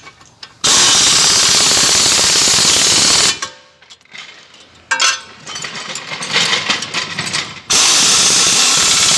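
Pneumatic impact wrench hammering in two runs of a few seconds each, run-down tightening nuts on a car's front wheel hub assembly, with lighter metal clicks and clatter between the runs.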